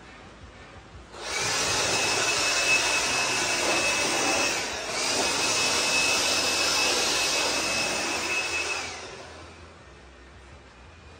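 Cordless battery blower running with a steady rushing whine, clearing shavings off a planed timber. It starts about a second in, dips briefly near the middle, and stops near the end.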